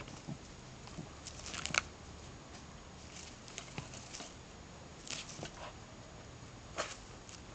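A dog nosing and pawing in dry straw mulch and soil: scattered short rustles and scratches, with the loudest cluster of them a little under two seconds in.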